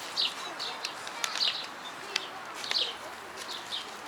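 Small songbirds chirping irregularly, about two short high chirps a second, with a few faint sharp clicks among them.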